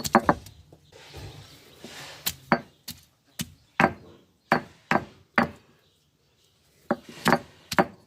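Ginger being crushed on an ammi, the stone roller striking down on the flat grinding stone: a run of sharp knocks, roughly two a second, with a short pause about six seconds in.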